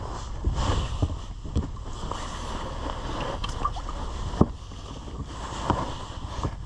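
Scattered knocks and clunks on a fishing boat, the loudest about four and a half seconds in, over a steady low rumble.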